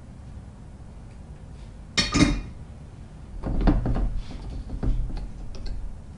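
Tools and parts being handled on a workbench during soldering: a sharp knock about two seconds in, then a run of softer knocks and rustles.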